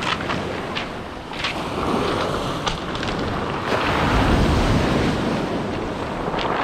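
Sea waves washing onto the shore, swelling louder about two seconds in and again around four seconds, with wind buffeting the microphone.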